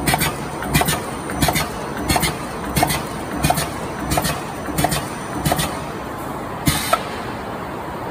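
Die-cutting machine running, its die stroke clacking in a steady rhythm of about three every two seconds over a constant mechanical hum. The clacking stops about five and a half seconds in, a quick double clack follows near seven seconds, and then only the hum goes on.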